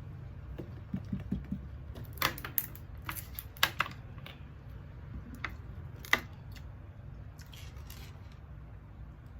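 Eating sounds: a run of sharp, irregular clicks and taps of a utensil on a plate, bunched in the middle few seconds, over a low steady hum.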